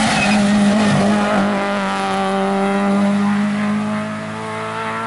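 Peugeot 106 rally car's engine held at a steady high pitch as the car drives past at stage speed, then fading as it moves away about four seconds in.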